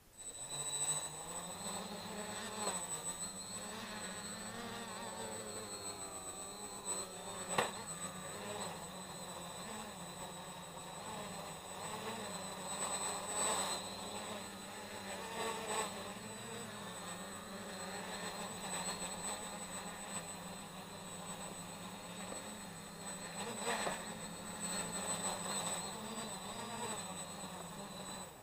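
Quadcopter motors and propellers buzzing, the pitch wavering up and down as the throttle changes, over a steady high whine. A sharp knock comes about seven and a half seconds in.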